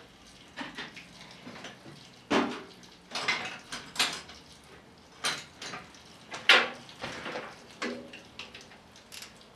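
Metal hand tools, wrenches and sockets, clinking and clattering as they are picked through, with several sharp clanks roughly a second apart.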